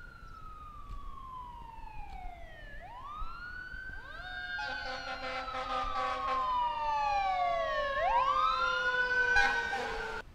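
Emergency vehicle sirens wailing in slow falls and rises, two or more overlapping from about four seconds in, joined for a couple of seconds by a steady blaring tone. They grow louder and then cut off suddenly near the end.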